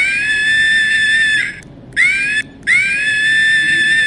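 Monkey screaming: three shrill, drawn-out calls, each rising in pitch at the start and then held steady. The first and last calls last over a second each, and a short call falls between them.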